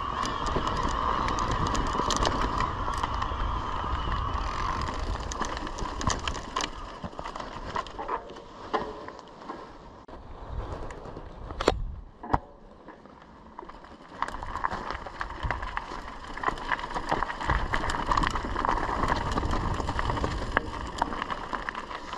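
Mountain bike riding a narrow gravel singletrack: tyres crunching and the bike rattling over stones, with a steady mid-pitched whine. It goes quieter for a few seconds in the middle, where two sharp clicks stand out, then the ride noise returns.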